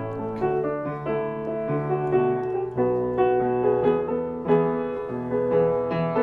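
Piano playing the introduction to a song, a steady rhythm of chords struck about every half second over a moving bass line.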